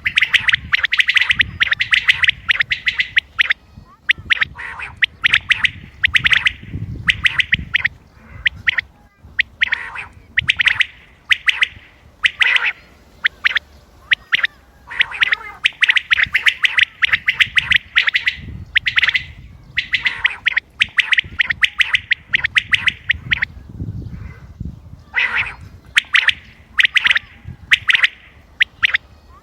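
Common quail calling over and over: quick runs of short, sharp notes, grouped in bursts of one to three seconds with brief pauses between.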